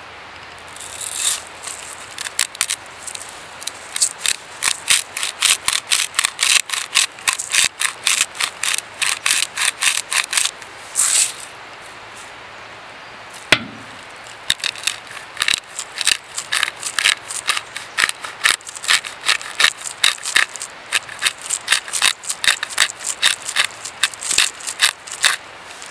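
Quick rhythmic scraping strokes, about three or four a second, in two long runs with a pause and a single sharp knock between them.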